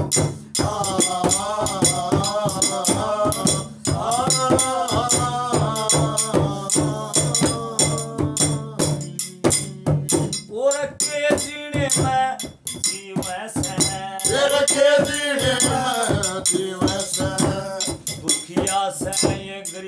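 Instrumental interlude of a Haryanvi ragni: a melodic lead bends up and down over a steady low drone, driven by fast, even, rattling percussion strikes.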